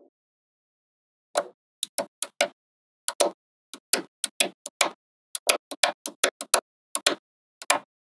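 Small magnetic balls snapping onto one another in a run of sharp clicks, irregular and in small clusters, beginning about a second and a half in.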